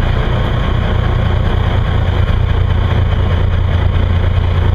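Beam trawler's engine running steadily underway, a constant low drone.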